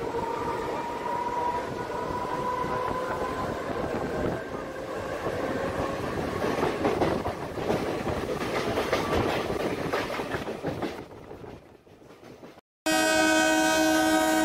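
A train running on the track, rattling steadily with wheel clicks, fades away about eleven seconds in. After a short silence, a loud train horn sounds as one steady chord.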